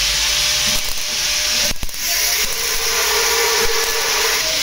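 MIG welder's arc crackling and hissing while welding a sheet-steel car body panel. It breaks off briefly a little under two seconds in and then starts again.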